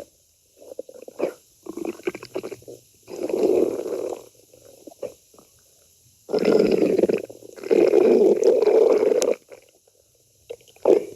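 A stomach growling and gurgling in irregular bursts: several short gurgles, then two longer rumbles of a second or more in the second half.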